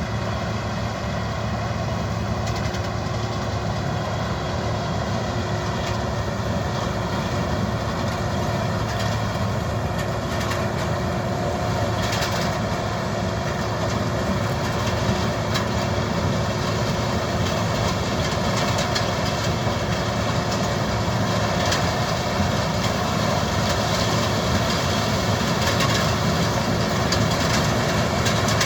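Combine harvester running steadily while harvesting sunflowers: a constant engine hum over the rattle of the threshing machinery, slowly growing louder.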